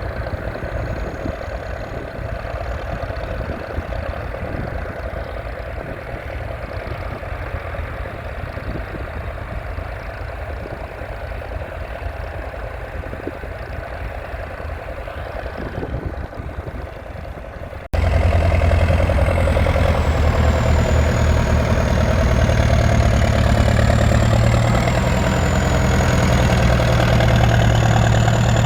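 A 1981 Leyland 802's 3.8-litre four-cylinder diesel engine running steadily. About two-thirds of the way through, the sound cuts abruptly to a louder, closer take of the engine, with a deep hum and a thin high whine that wavers in pitch.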